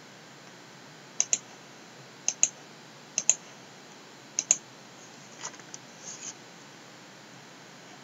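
Computer mouse button clicked four times, about a second apart, each a quick press-and-release double click, followed by a few fainter clicks.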